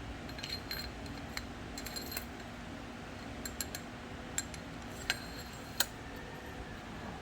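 Scattered light metallic clicks and clinks as the front fork's rod and spring are pushed into the fork tube by hand, over a steady background hum.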